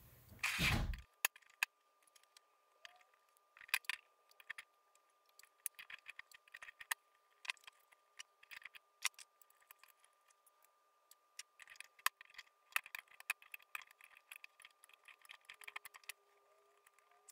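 Small metallic clicks, ticks and scrapes of needle-nose pliers and fingers working the mounting screws of a Darlington power pack loose from an amplifier's aluminium heatsink. There is a single thud about half a second in, as the opened amplifier chassis is shifted on the bench.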